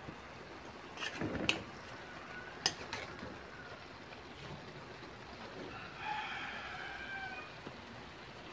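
A metal spatula clinks and scrapes against a steel wok a few times in the first three seconds while the bok choy and chicken are stirred. About six seconds in, a rooster crows once, a call of a little over a second.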